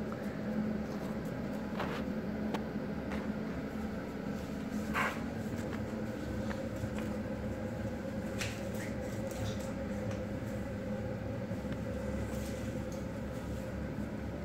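Sparse light clicks and taps of kitchen utensils and containers being handled, a few seconds apart, over a steady low background hum.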